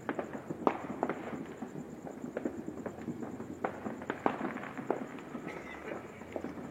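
Fireworks going off: irregular sharp pops and bangs, several a second, over a continuous crackle.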